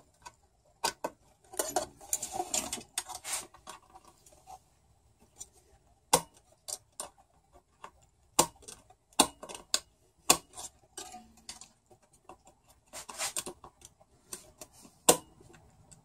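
Small metal pick clicking and scraping against a car radio's circuit board and metal chassis as a chip is pried out of its socket. The clicks come at irregular intervals, with short scratchy stretches a couple of seconds in and again late on.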